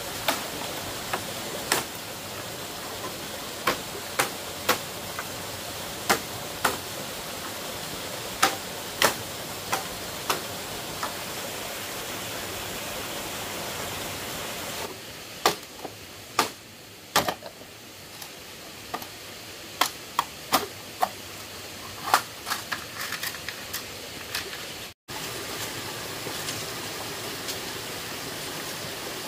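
A series of sharp, irregular knocks or taps, roughly one or two a second, over a steady hiss.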